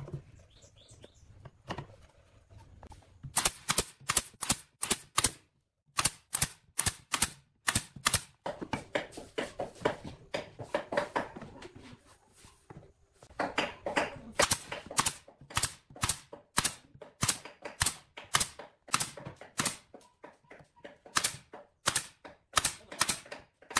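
Pneumatic brad nailer firing sharp shots in quick runs of several a second, driving nails through pine slats into a box frame, with softer knocks of the boards being handled between runs.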